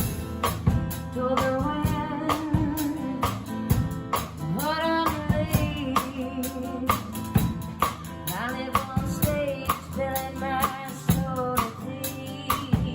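A woman singing a singer-songwriter song over a strummed guitar, her voice wavering with vibrato on held notes, over a steady beat of strokes.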